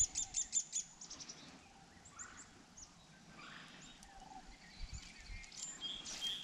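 Songbirds chirping: a quick run of high, evenly repeated chirps in the first second, scattered single notes after, and a rapid trill near the end, over a faint outdoor background hiss.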